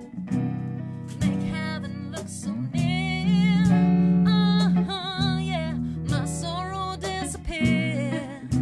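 Live acoustic pop-soul song: an acoustic guitar strummed in chords while a woman sings the melody with vibrato, the voice entering strongly about three seconds in.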